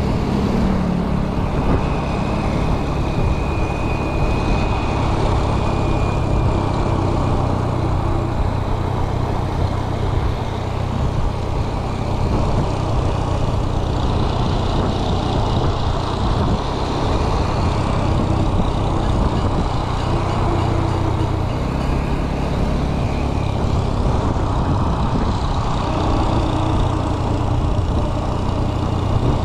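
Steady road noise with a low rumble, of the kind made by vehicle traffic on a road.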